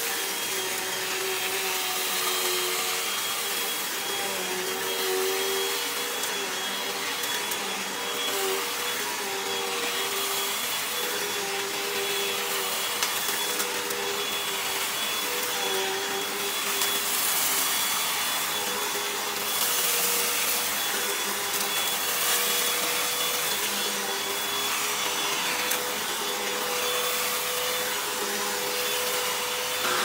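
Upright vacuum cleaner running on carpet, its motor whining steadily. There is crackling as it sucks up loose dirt and debris, strongest around the middle.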